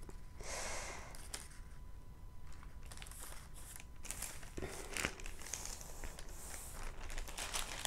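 A diamond painting canvas and its backing sheet rustling and crinkling as it is rolled up onto a tube by hand, in several short irregular bursts with a few small clicks.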